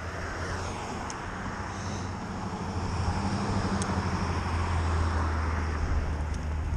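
Street traffic at a city intersection: a motor vehicle's engine running steadily nearby, growing louder about three seconds in.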